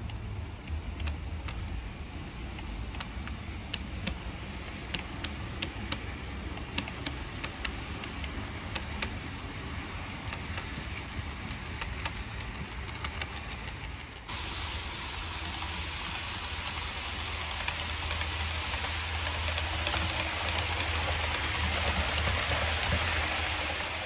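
Hornby 00 gauge APT model train running along the track: quick irregular wheel clicks over a low motor hum, then an abrupt change about fourteen seconds in to a steadier running hiss and hum that grows louder toward the end.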